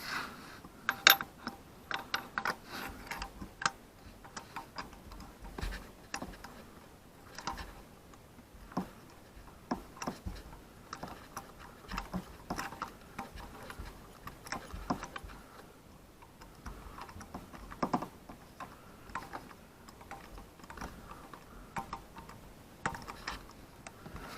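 Ratchet clicking in short irregular runs, with light metallic tool clicks, as a spark plug is run down into the engine's cylinder head.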